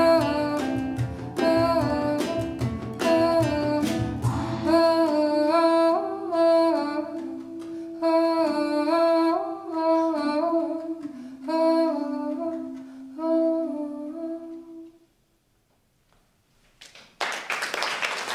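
A folk song ending: strummed acoustic guitar with a low bass part for the first few seconds, then a wordless sung melody over sparse guitar notes that fades out around fifteen seconds in. After a short silence, audience applause starts near the end.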